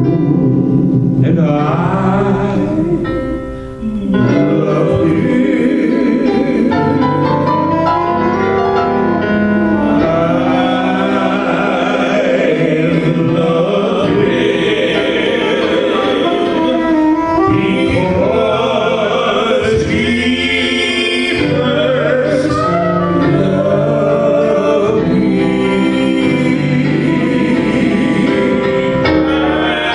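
Gospel-style worship music with singing, played continuously, with a brief dip in loudness about four seconds in.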